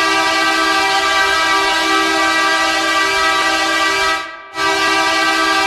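Hockey goal horn: a loud, sustained air-horn chord of several notes that drops away briefly about four seconds in and then sounds again.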